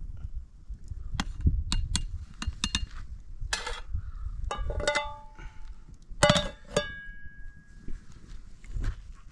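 Metal cookware clattering: a ladle, small metal pots and a lid knocked and set down on a cooking pot, with sharp knocks and two clusters of ringing clangs around the middle. The last clang rings on for about a second. A low rumble runs underneath.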